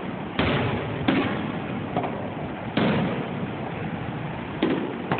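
Aerial fireworks shells bursting overhead: four sudden booms, each trailing off in an echo.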